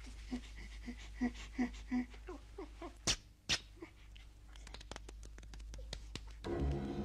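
Rapid, short panting breaths, about three a second, then two sharp clicks about three seconds in and scattered faint ticks. Orchestral music with timpani comes in near the end.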